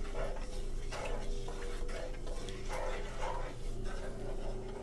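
Wooden spatula stirring yogurt into sizzling masala in a nonstick wok: irregular scraping strokes over a light sizzle, with a steady low hum underneath.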